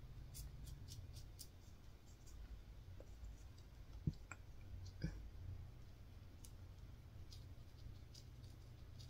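Quiet handling of an eyeshadow brush and palette: faint scattered clicks, and two light knocks about four and five seconds in, over a low steady hum.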